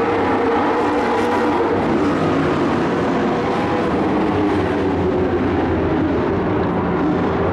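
Engines of several dirt-track race trucks running at speed around the oval, blending into a steady din.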